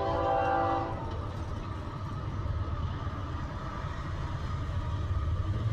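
Union Pacific locomotive's air horn sounding a chord that cuts off about a second in, followed by the low rumble of the approaching train, slowly growing louder.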